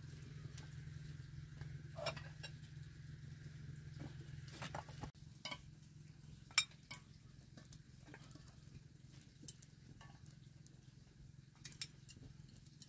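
Scattered light clinks and taps of bowls and spoons at a meal, with one sharper click about six and a half seconds in, over a steady low hum.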